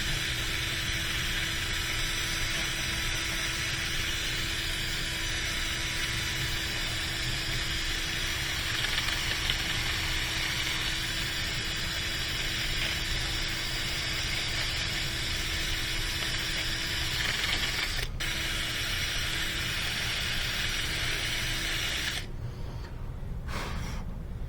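Handheld power tool spinning a cleaning bit in a brake caliper's slider-pin bore, running steadily with a hum and a gritty scrubbing. It stops for an instant about three-quarters through and cuts off near the end.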